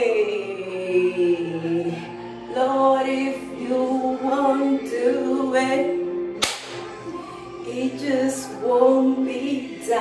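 A woman singing with long held, sliding notes, and a few sharp hand claps about five and six and a half seconds in.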